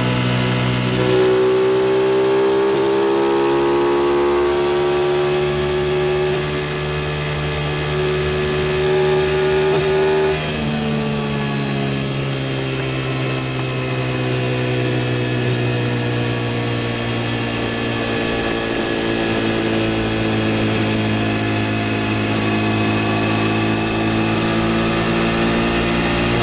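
Aprilia RS660 parallel-twin engine pulling on the road. Its pitch climbs slowly, drops sharply with a gear change about ten seconds in, eases off, then rises again near the end.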